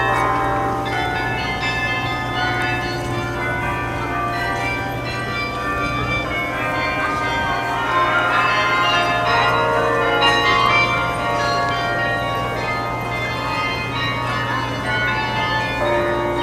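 The 47-bell carillon in the Belfry of Bruges playing a tune, many bells ringing and overlapping.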